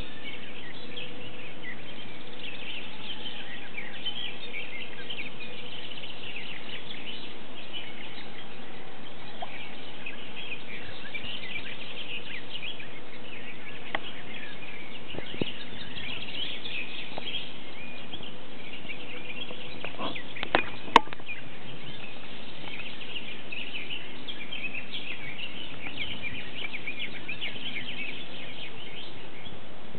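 A chorus of many birds chirping and singing, continuous and dense throughout. A few sharp clicks come about two-thirds of the way through, the loudest of them just after the two-thirds mark.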